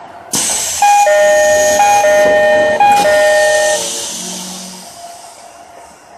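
Train door-closing chime: a two-note high-low chime sounding three times over a hiss of air from the pneumatic door gear, with a knock about three seconds in as the doors shut.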